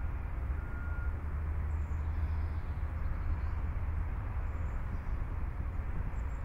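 Steady low rumble of a 1981 Rolls-Royce Camargue's 6.75-litre V8 and road noise while cruising, with no revving.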